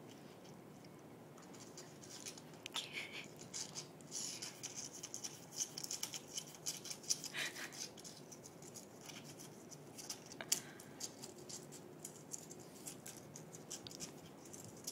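Raccoon crunching and handling a potato chip: a run of small, crisp crackles and clicks from about two seconds in until about eleven seconds.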